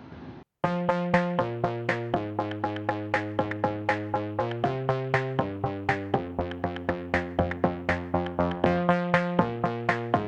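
Electronic background music with held chords over a steady beat, starting abruptly about half a second in after a brief silence.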